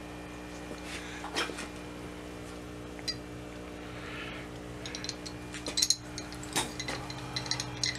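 Steady electrical hum with a few light metallic clicks and clinks from a restored 9-inch auto wrench being handled, the clicks coming more often in the second half.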